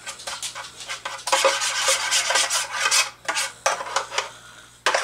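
A utensil scraping and stirring inside a metal baking pan: a run of scraping strokes of uneven length with short pauses between them.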